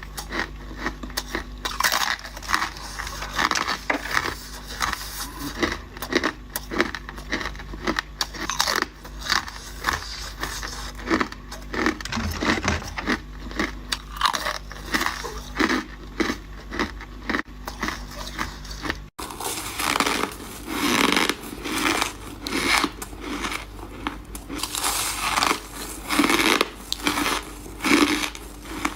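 Close-up crunching of ice being bitten and chewed, with many sharp irregular crunches. A faint low hum underneath stops abruptly about two-thirds through.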